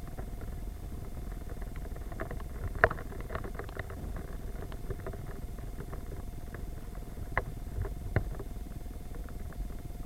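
Rain falling: irregular drops tapping at uneven intervals, a few of them sharper and louder, over a steady low rumble.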